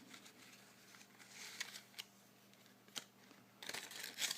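Playing cards and their plastic packaging being handled: soft rustling with a few light clicks and taps, the rustling strongest near the end.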